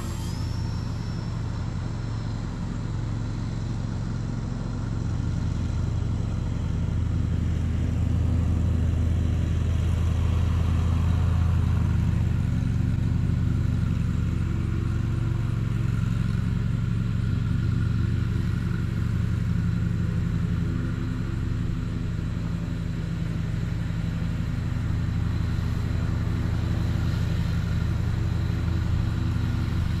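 Wind buffeting the microphone as a steady low rumble that swells for a while in the middle, with the faint drone of a small electric RC plane's motor and propeller flying overhead.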